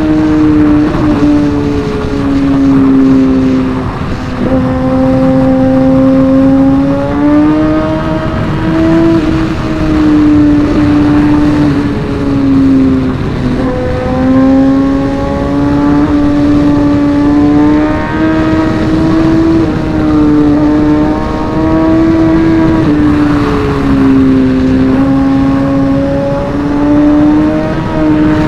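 Superbike inline-four engine heard from the rider's own bike under way, its note climbing and sagging as engine speed changes, with dips about 4, 13 and 24 seconds in, over constant wind and road rush.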